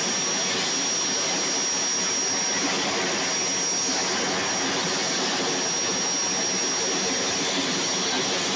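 Aircraft turbine engine running steadily: a continuous rushing noise with a constant high-pitched whine over it.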